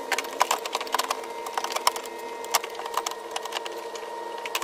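Irregular sharp clicks and taps of tools and plastic trim being handled while a car taillight is worked on, over a steady hum.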